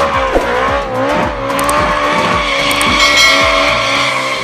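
A drift car spinning donuts, its tyres squealing in a long, wavering screech while the engine revs rise and fall underneath.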